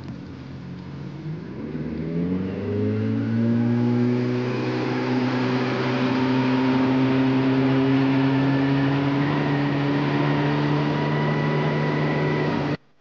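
Outboard motor on a small fishing skiff throttling up, its pitch rising over a couple of seconds as the boat gets under way. It then runs steady at speed over rushing wind and water noise, and cuts off suddenly near the end.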